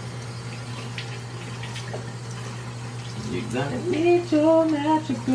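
Water running from a bathroom sink tap, with a few light clicks, then from about three seconds in a man humming a tune in long held notes.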